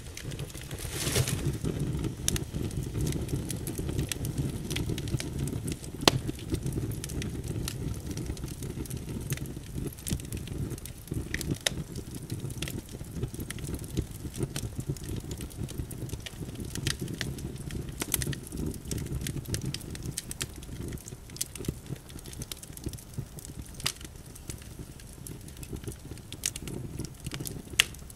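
Fire crackling: a steady low rumble of burning with irregular sharp pops and snaps scattered throughout.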